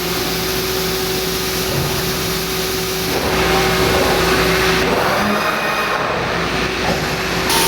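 Large horizontal machining center running: a steady mechanical hum with a hissing noise over it. The sound shifts abruptly about three seconds in and again near the end.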